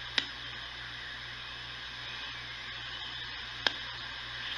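Knight Kit Space Spanner regenerative shortwave receiver hissing through its speaker between stations as it is tuned, with its regeneration turned up. A low hum runs underneath, and two sharp crackles come through, one just after the start and one near the end.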